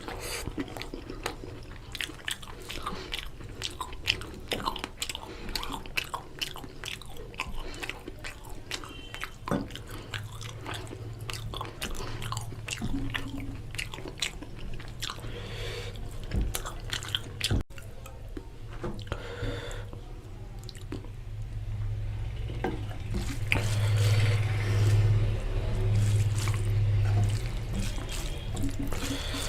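Close-up chewing and mouth sounds of a person eating mutton curry with rice: many quick wet clicks, growing louder and rougher during the last several seconds.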